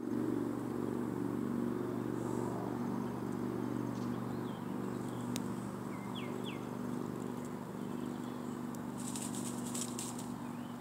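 A steady low mechanical hum throughout, with a few short bird chirps in the middle and about a second of crackling clicks near the end.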